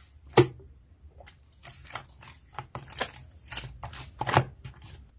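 White slime stretched and pulled between the hands, giving irregular sticky clicks and crackles, with a sharp pop about half a second in and a louder cluster near the end.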